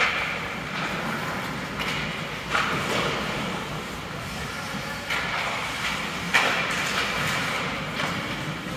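Ice hockey game sounds in an arena: steady rink noise with several sharp knocks and scrapes of sticks, puck, skates or boards.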